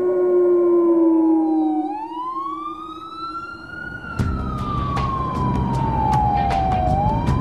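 A wolf's long steady howl that dies away under the slow wail of an emergency-vehicle siren, which climbs in pitch, falls slowly and starts to climb again. About four seconds in, a low city traffic rumble with sharp knocks comes in suddenly.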